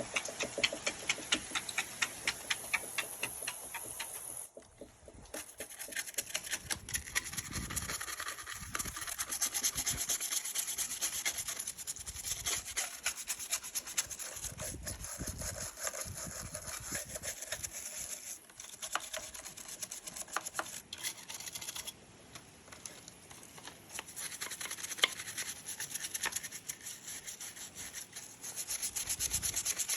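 Rapid, continuous scrubbing strokes on a NERF blaster being cleaned, with a short break about four and a half seconds in.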